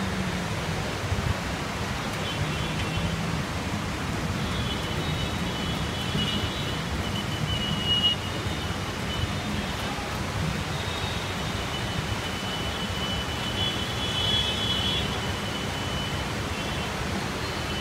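Heavy rain falling: a steady, even hiss of downpour, with faint high thin tones coming and going through it.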